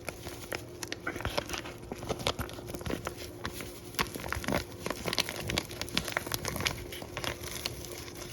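Ranch seasoning packet crinkling and tearing as it is opened and emptied one-handed: a run of irregular sharp crackles, over a faint steady hum.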